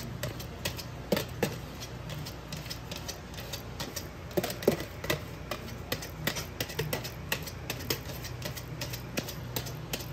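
Wire whisk clicking and tapping against the sides of a plastic bowl as it stirs cream and yogurt through chopped fruit, in quick irregular clicks several times a second, over a faint steady low hum.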